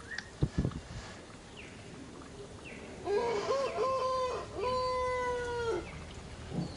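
A rooster crowing: one call of nearly three seconds, a few short wavering notes and then a long held note that drops at the end, starting about three seconds in. A couple of short low thumps come near the start.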